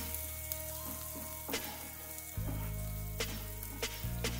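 Finely chopped onion sizzling in hot oil in a nonstick kadhai while a wooden spatula stirs it, with several sharp taps of the spatula against the pan.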